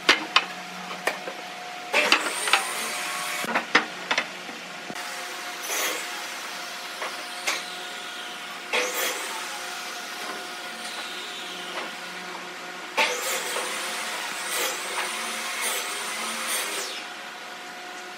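Wooden boards knocking and scraping as they are shifted on steel pipe clamps and worked with a glue brush, a series of short clunks and rubbing noises. A steady machine hum runs underneath.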